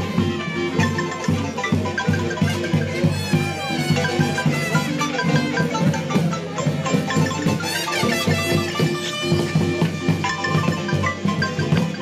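Marimba music: quick, evenly repeated mallet notes over a drum beat.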